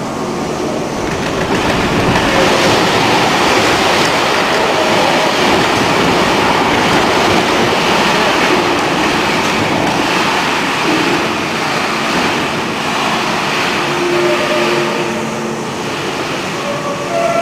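Shake table running a simulated earthquake: a steady, loud rumbling clatter from the table and the solid-timber log house shaking on it.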